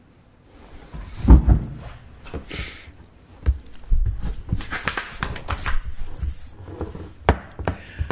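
Things being handled on a desk close to the microphone: a loud thump about a second in, then rustling and several sharp clicks and knocks.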